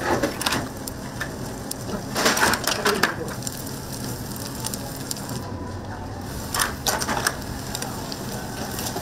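Seafood sizzling on a barbecue grill: a steady hiss broken by short clusters of crackling and clatter at the start, around two to three seconds in, and again near seven seconds.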